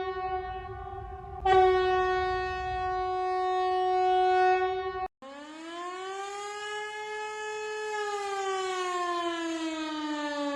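Alternative Emergency Alert System alarm tones: a steady, buzzy alarm tone that restarts about a second and a half in and cuts off abruptly about five seconds in. It is followed by a siren-like wail that rises slowly, holds, then slides slowly down.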